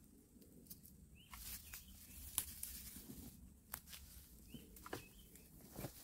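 Faint scattered clicks and rustles of a litter grabber picking trash off leaf-strewn ground and dropping it into a bin lined with a plastic bag, with a few short bird chirps.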